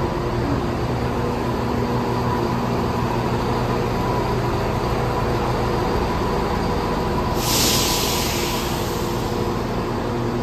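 Class 171 Turbostar diesel multiple unit idling at the platform: a steady hum from its underfloor diesel engines with a constant whine. About seven seconds in, a hiss of released air lasts for over a second.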